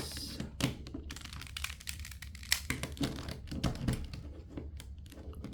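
Plastic clicking and clacking of a 3x3 Rubik's Cube being turned one-handed: irregular rapid clicks as the layers are twisted through a repeated algorithm.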